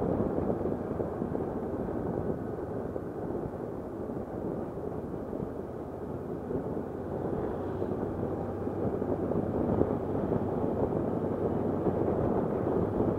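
Motorcycle riding along at road speed, heard from a camera mounted on the bike: steady engine and road rumble mixed with wind rushing over the microphone. It gets a little quieter in the middle and louder again toward the end.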